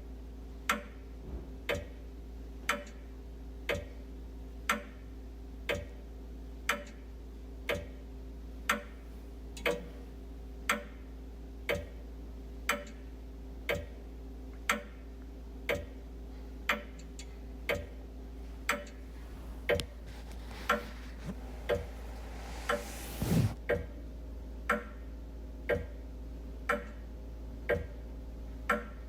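Wall clock ticking steadily, about one tick a second, over a constant low hum. Once, about two-thirds of the way through, a rustling swell rises and ends in a soft thump.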